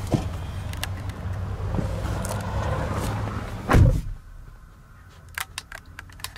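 A car door shuts with one heavy thump about four seconds in. Before it there is a steady outside rumble, and after it the sound drops to a quiet, closed cabin with a few light clicks.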